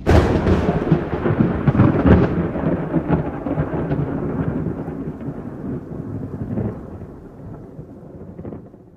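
A thunderclap that opens with a sharp crack, then a long rolling rumble that slowly fades away, with rain falling throughout.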